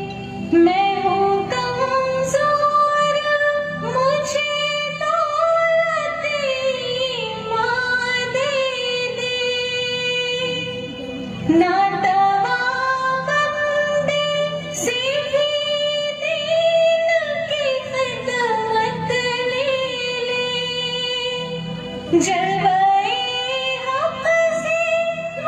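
A woman's voice singing a slow prayer song (dua) in long, gliding phrases over a soft rhythmic accompaniment, with a new phrase starting about every ten seconds.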